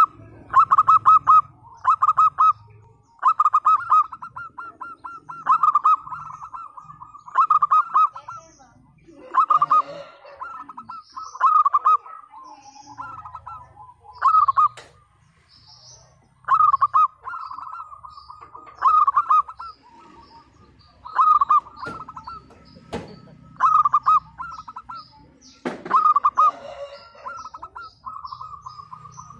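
Zebra dove (perkutut) singing, a rapid stuttering run of cooing notes repeated about every two seconds.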